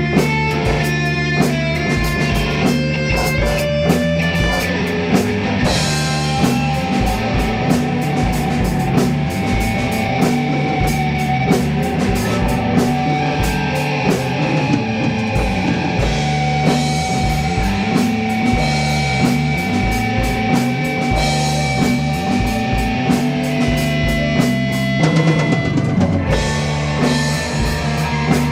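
Psychedelic rock jam: a drum kit keeps a steady beat under electric guitar, with long held guitar notes through most of it.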